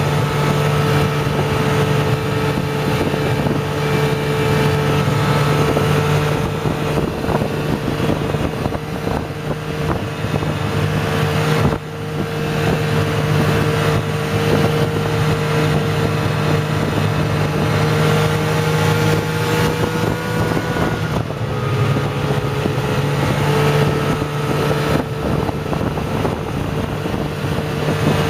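Snowmobile engine running steadily under way, with wind on the microphone. The engine eases off briefly about twelve seconds in and its pitch dips a little again past twenty seconds.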